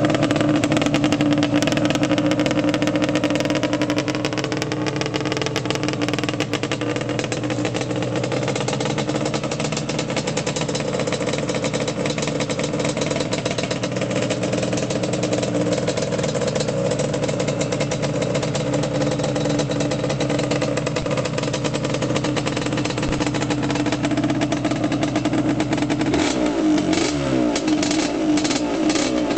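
Yamaha Banshee's twin-cylinder two-stroke engine, freshly rebuilt with a new stock-stroke crank, .010-over bore and Wiseco pistons, running steadily with slight wavering in pitch. About 26 seconds in, the throttle is blipped and the revs rise and fall unevenly.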